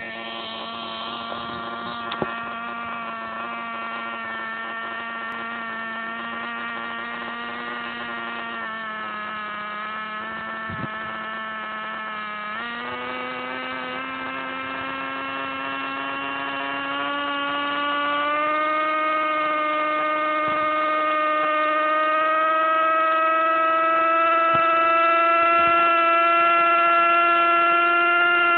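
Zoom 450 nitro RC helicopter's SX .12 glow engine running with its rotor turning. About halfway through the pitch jumps up, then keeps climbing slowly and grows louder as the engine and rotor speed up.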